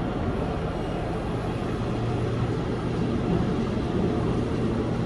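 Busan Subway Line 1 train running at speed on an elevated track, heard from inside the car: a steady low rumble of wheels on rail with a faint hum underneath.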